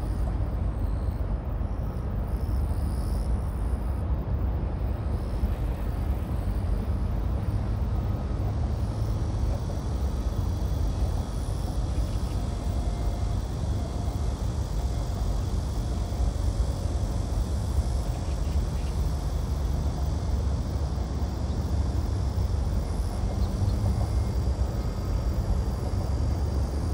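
Steady outdoor rumble of distant road traffic, heaviest in the low end and even throughout, with no single vehicle or train passing by.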